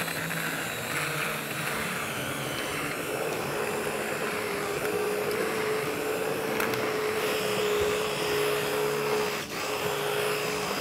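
Electric immersion blender running steadily in thick haleem porridge, puréeing the cooked grains and lentils smooth. Its motor whine settles to a steady pitch a few seconds in and dips briefly near the end.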